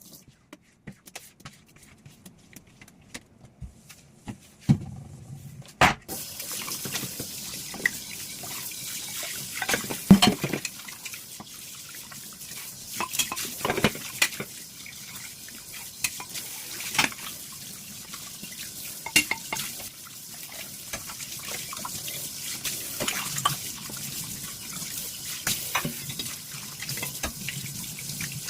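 Dishes being washed by hand at a kitchen sink: a few light clinks of crockery, then about six seconds in the tap is turned on and water runs steadily while dishes and cutlery clink and knock under it.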